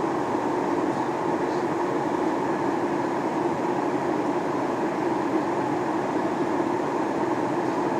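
Steady cabin noise inside a Boeing 737-800 airliner: an even rush of airflow over a low engine hum, unchanging throughout.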